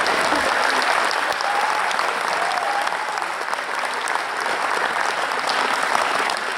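Audience applauding steadily after the music ends, easing slightly near the end, with a faint voice calling out once or twice.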